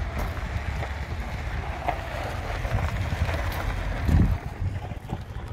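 Wind buffeting the microphone: an uneven low rumble that swells into a stronger gust about four seconds in.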